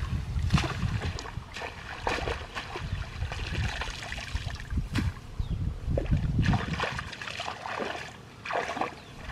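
Irregular splashing and sloshing of shallow water and mud, with rustling of rice plants and grass being handled.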